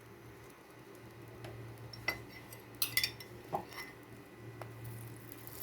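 A few light, scattered clinks of metal utensils against cookware, about six over several seconds, over a low steady hum.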